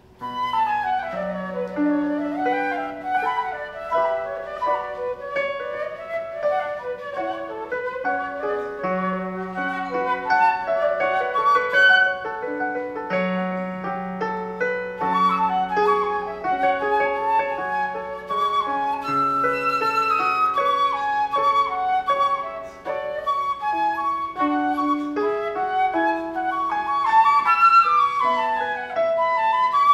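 Flute solo with piano accompaniment: a classical-style melody that begins right at the start, over held lower notes beneath it.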